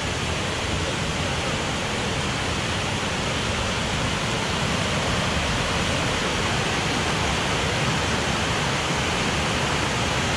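Waterfall on a Yorkshire Dales beck after heavy rain, giving a steady, unbroken rush of falling water.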